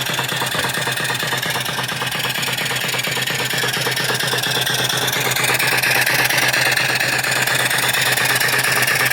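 Homebuilt steam engine with a 3-inch bore and 4-inch stroke running steadily on boiler steam, making a rapid, even beat over a steady low hum. A steam hiss grows louder about halfway through.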